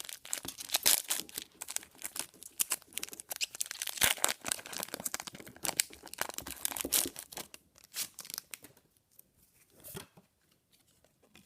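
Foil Pokémon booster pack wrapper being torn open and crinkled in the hands, a dense run of crackling and ripping that dies down to light handling about nine seconds in.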